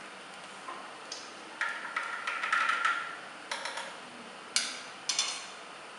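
A scatter of light taps and sharp clinks from a stainless steel cup being handled at a juicer, the two sharpest clinks about half a second apart late on, with a brief metallic ring.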